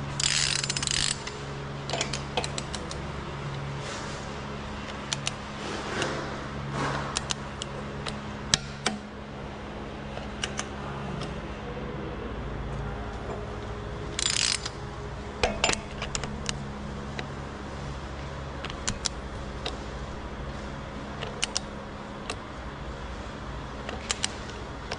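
Ratchet of a torque wrench being worked on a bolt: a quick rasping run of clicks near the start and again about halfway, with scattered sharp metal clicks and taps between. A steady low hum runs underneath.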